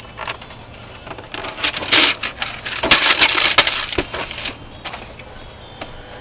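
Paper sheets and a notebook rustling and crackling as they are handled, with a few sharp clicks; the loudest rustling comes in a dense burst from about two to four and a half seconds in.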